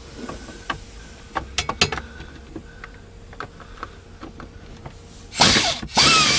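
Scattered light clicks and taps of a socket on a long extension being worked onto a bolt behind a truck dashboard. About five seconds in come two loud bursts, about a second each, of a cordless power driver spinning the extension.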